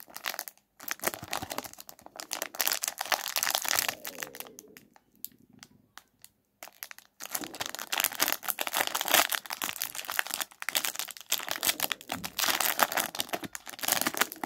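Foil wrapper of a Topps Series 1 baseball card pack crinkling and tearing as it is pulled open by hand, in two long stretches with a lull of about two seconds in the middle.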